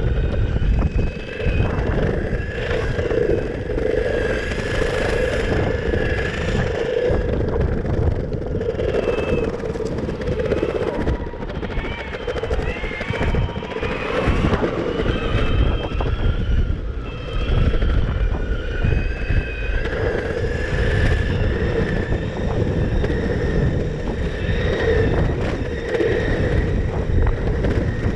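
Electric skateboard rolling at speed: wind buffeting the microphone and wheels rumbling on pavement, with the motor's thin whine slowly rising and falling in pitch as the board speeds up and slows down.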